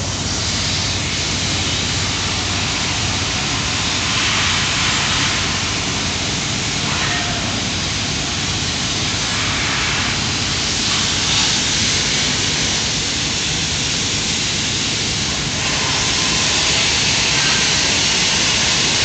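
Aerosol can hissing in several bursts of a few seconds each as magnetic particle ink is sprayed onto a weld, over a steady hiss and a faint low hum.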